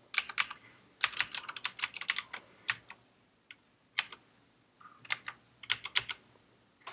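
Typing on a computer keyboard: quick runs of keystroke clicks in a few bursts, with short pauses between them.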